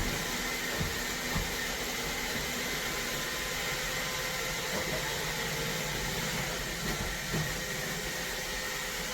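iRobot Roomba Combo robot vacuum running, a steady motor hum and whir with a few light knocks.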